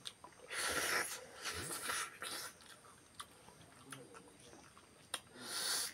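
Close-up eating sounds from people chewing rice and beef leg by hand. Chewing and mouth noises come in three bursts: about half a second in, around two seconds in, and just before the end, with a few small clicks between.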